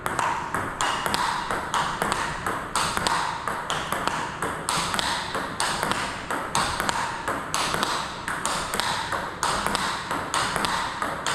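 Table tennis ball in a fast forehand topspin-against-block rally, clicking off the rubber-faced paddles and bouncing on the table in a steady rhythm of about three clicks a second.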